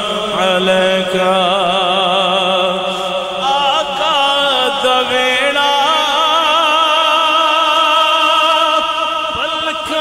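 A man's voice singing a naat, drawing out long ornamented notes with a wide vibrato.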